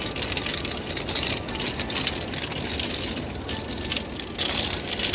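Hail and heavy rain pelting down: a dense, steady rattle of many small impacts in a rushing hiss, swelling a little in places.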